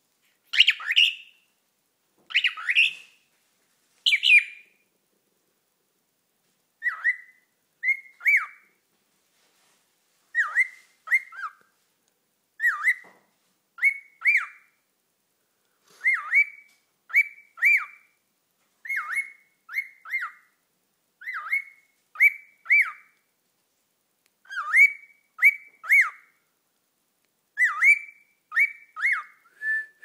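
Young cockatiel calling: three louder, harsher calls in the first few seconds, then a long run of short whistled chirps that sweep downward, mostly in pairs or threes, repeated every second or so with short silences between.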